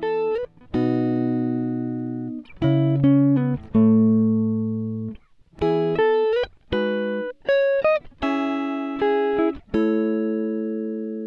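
Background music: a slow instrumental melody of single pitched notes, each struck sharply and then ringing away.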